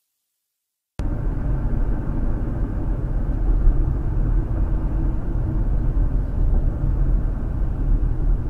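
Steady road and engine noise heard from inside a moving car, starting abruptly about a second in after silence.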